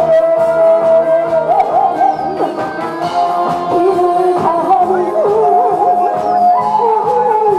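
A woman singing through a microphone over instrumental accompaniment.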